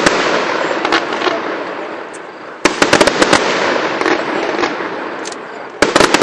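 Aerial fireworks display: sharp shell bursts going off in clusters, the thickest about two and a half to three and a half seconds in and again near the end, with a steady crackling and fizzing from the shells between the bangs.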